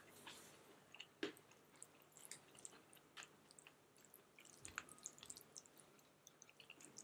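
Faint sounds of eating by hand: fingers squishing and mixing rice with dal on a plate, with scattered small clicks and a slightly louder one about a second in.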